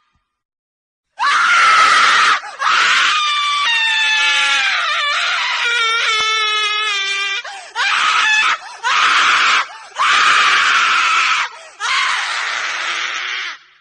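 A woman screaming over and over: about six screams with short breaks between them, starting about a second in. The second scream is the longest, wavering and falling in pitch.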